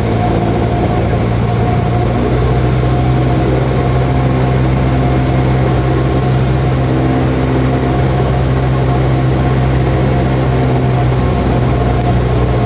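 Cessna 172M Skyhawk's four-cylinder Lycoming engine and propeller droning steadily on final approach, heard from inside the cabin, with the hiss of air over the airframe beneath it. The sound holds even, with no change in pitch.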